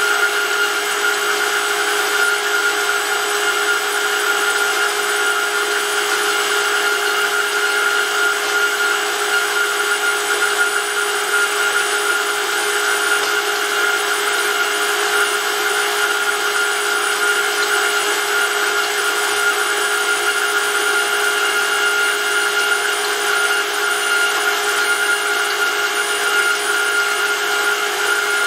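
Electric motor driving a hydraulic gear pump as an oil pump, running at a steady speed: an even mechanical whine with several held tones over a steady hiss, unchanging throughout.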